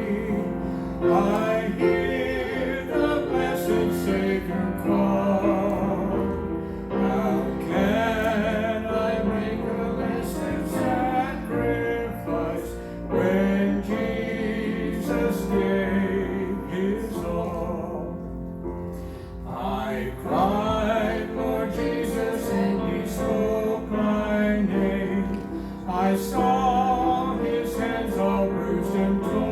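Church music: singing with vibrato over sustained instrumental accompaniment.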